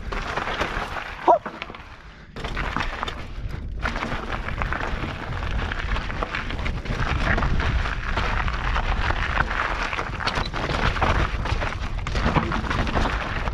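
Mountain bike descending a rocky, loose trail: tyres crunching over gravel and rock with frequent knocks and rattles from the bike, over a heavy low rumble of wind on the camera mic. A brief squeal comes about a second in, followed by a short quieter spell before the rattling picks up again.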